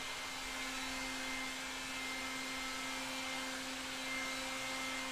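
Electric heat gun running steadily, its fan blowing hot air onto a dented steel car door to warm the crease to about 60 °C, with a steady hum under the airflow.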